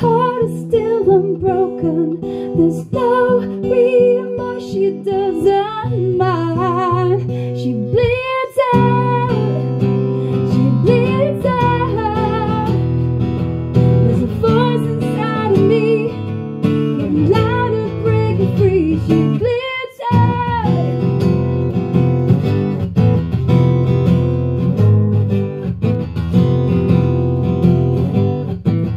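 A woman singing, holding notes with vibrato, to a strummed acoustic guitar. The music briefly drops out twice, about eight seconds in and again around twenty seconds.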